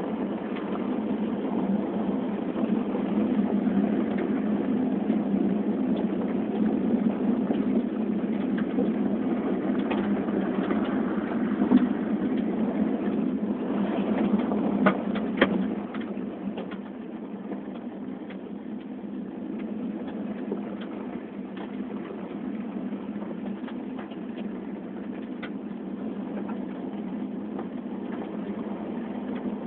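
Road noise inside the cabin of a Hyundai Accent driven over a rough gravel road: a steady rumble of engine and tyres, with gravel ticking against the car and a few sharp knocks near the middle. The rumble drops a little past the halfway point.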